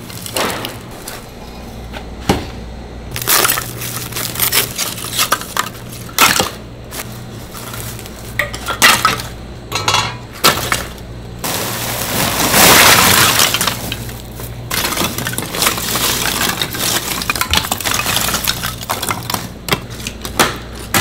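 Lumps of hardwood charcoal clinking and clattering against each other as they are piled onto a grill's ash bed, with a longer loud rattling rush about twelve seconds in. Near the end come sharp knocks as the charcoal is broken up with a hammer.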